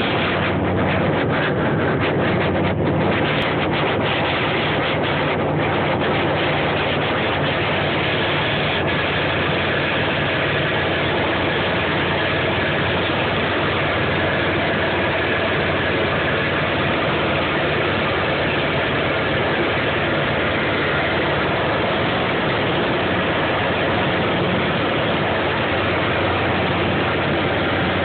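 Ultralight aircraft's engine and propeller running steadily in cruise, heard from inside the closed cockpit as a low, even hum under a constant rush of air.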